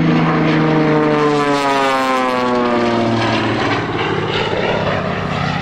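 Propeller airplane flying past, its engine note sliding down in pitch as it goes by.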